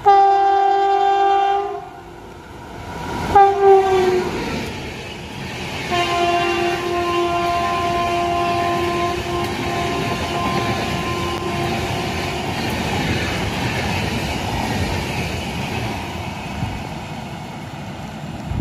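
A WAP-5 electric locomotive sounds its horn three times. First comes a long blast as it approaches, then a short blast about three seconds later whose pitch drops as it passes, then a longer, lower blast. Under and after the horns, the Shatabdi Express coaches rush and clatter past at speed.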